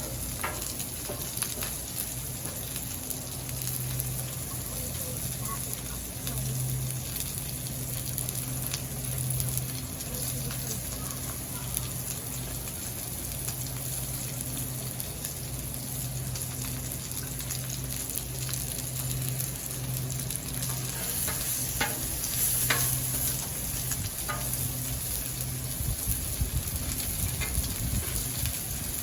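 Food sizzling steadily on a Blackstone flat-top griddle, with a few sharp clicks near the end and a low hum underneath.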